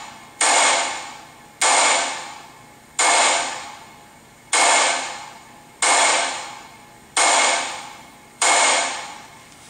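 Gunshots from a shooting video played through a small speaker: seven shots at an even pace, a bit over a second apart, each a sharp crack that fades away over about a second, with no deep bass.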